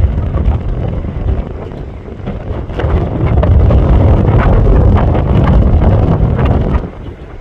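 Strong wind buffeting the microphone, a dense low rumble that grows louder about three seconds in and eases off again near the end.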